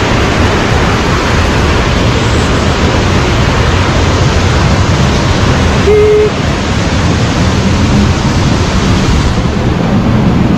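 Roadside waterfall: a loud, steady rush of falling water.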